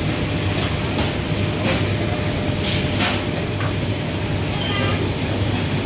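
Busy eatery ambience: a steady low rumble of room and crowd noise, with a few sharp clinks of metal utensils and steel trays.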